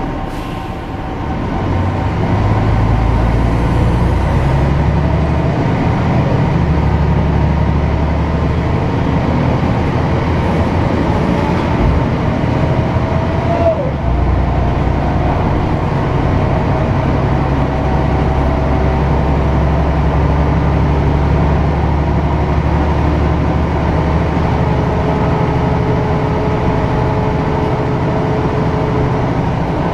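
City bus engine heard from inside the passenger cabin, pulling away about a second and a half in. It changes up through its gears in steps, then runs steadily with road noise.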